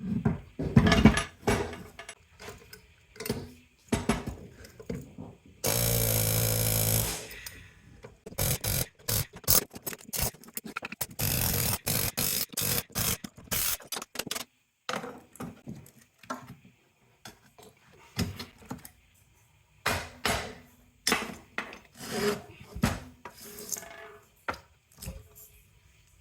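Metal pump and motor parts being handled, knocked and dropped while being dismantled for scrap: a run of sharp clanks and knocks, with a steady mechanical buzz for over a second about six seconds in and a long stretch of dense scraping and rattling after it.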